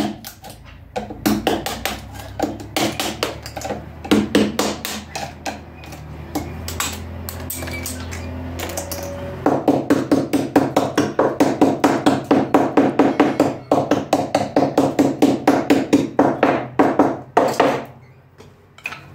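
Hammer tapping a screwdriver to chip excess cured granite-composite flash off the edge of a sink in its fibreglass mould. Sharp knocks come scattered at first. About halfway in they turn into a fast, steady run of taps that stops shortly before the end.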